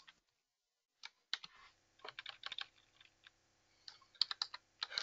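Computer keyboard being typed on: irregular key clicks starting about a second in, with a quick run of keystrokes near the end.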